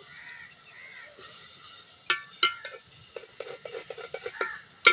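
Metal spoon clinking and scraping against a metal cooking pot as spices are stirred in. There are a couple of sharp clinks about two seconds in, then a quick run of lighter taps, and one loud clink at the very end.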